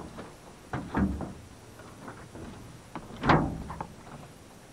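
Two dull knocks on a small boat's deck, one about a second in and a louder one after about three seconds, as a man steps up onto a hard plastic cooler on the bow.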